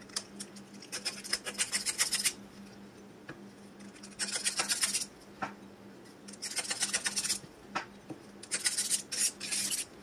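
Abrasive pad scrubbed in quick back-and-forth strokes across the metal friction disc in a sewing-machine clutch motor's pressure-plate housing, in four short bursts of scraping.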